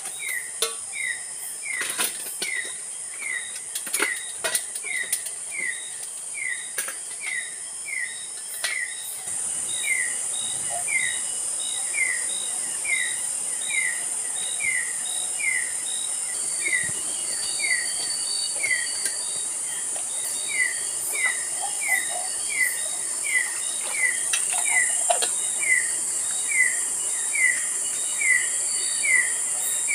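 A forest bird repeating a short, downward-sliding call over and over, about three every two seconds, over a steady high insect drone that grows louder about nine seconds in and again near the end. Scattered sharp clicks sound during the first third.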